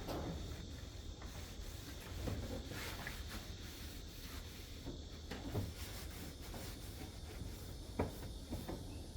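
Irregular knocks and clunks of parts and panels being handled inside a car's interior, with a sharper single knock near the end.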